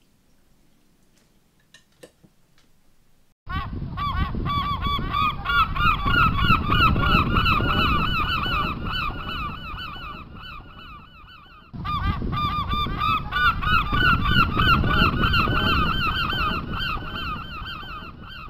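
Near silence at first, then about three and a half seconds in a flock of birds starts honking loudly, with many overlapping calls. The honking fades, cuts off and starts again abruptly about twelve seconds in.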